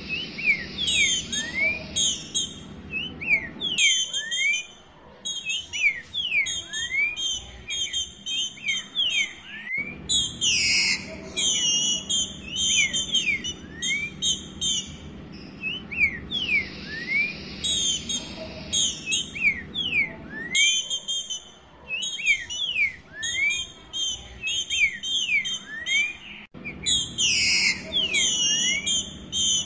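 Female green-winged saltator (trinca-ferro, Saltator similis) calling: a rapid run of short sliding whistle notes mixed with higher chirps, in long bursts broken by brief pauses. It is the female's call soliciting mating, used to get males singing.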